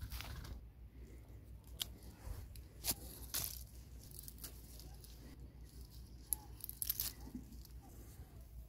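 Close handling noise while apples are picked and bagged: irregular crinkles and sharp snaps, about half a dozen of them, over a low steady rumble.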